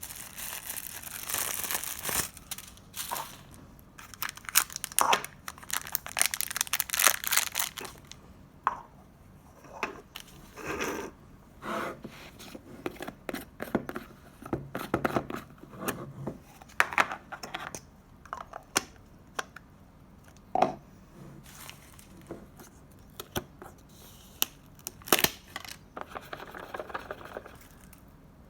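Slime being handled: squished and pulled apart, with irregular crackles, pops and tearing sounds. The crackling is dense for the first several seconds, then thins to scattered pops.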